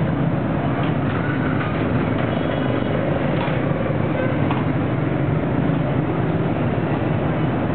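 Busy street traffic passing close by: a steady mix of small motorbike and scooter engines and cars.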